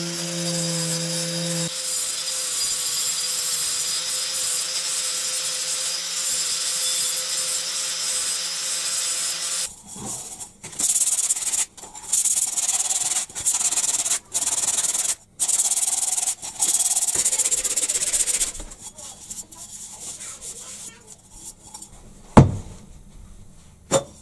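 Steel oil-filter canister being sanded by hand: a steady sanding hiss, then a series of separate rubbing strokes about a second each with short gaps. At the start an angle grinder hums and stops about two seconds in. Near the end two sharp clicks.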